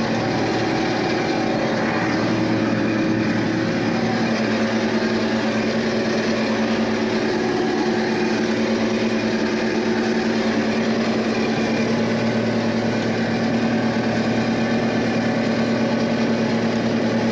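John Deere combine running steadily while cutting corn: an even engine drone with a constant humming tone over the rush of the machinery.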